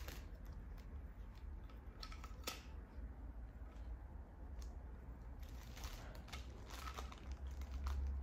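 Faint scattered clicks and knocks of a portable tripod being handled as its telescoping centre column is pulled up and adjusted, over a low steady hum.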